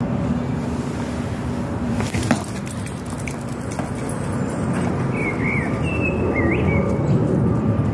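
Steady low outdoor rumble with a single sharp knock a little over two seconds in, then a bird chirping three times near the end.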